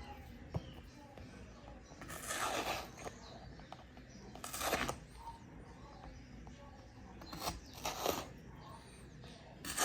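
Fabric being rubbed and pulled by hand around an interior trim piece: a few short rustling, scraping strokes a couple of seconds apart over faint room noise.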